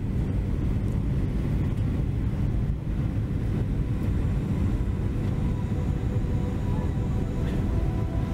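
Steady low rumble of airliner cabin noise, engines and airflow heard from inside the passenger cabin. Background music fades back in faintly during the second half.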